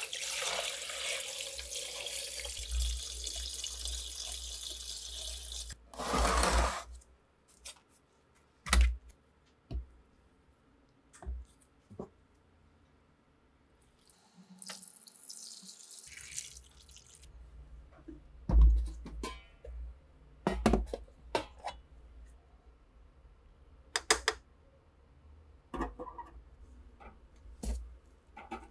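Water poured and splashing over rusty rifle parts in two long stretches, with scattered sharp knocks and clinks of metal parts in between.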